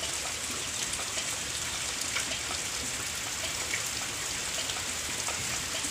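Rain falling steadily, with scattered drops tapping close by.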